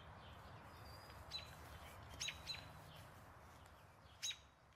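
Faint bird chirps: four short, sharp high calls over a low steady hum, with the background sinking down near the end.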